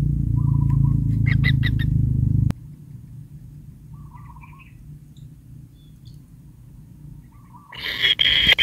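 Kingfisher nestlings in an earth burrow nest: short trilled calls every few seconds over a low rumble that cuts off about a third of the way in. Loud, harsh calling breaks out near the end.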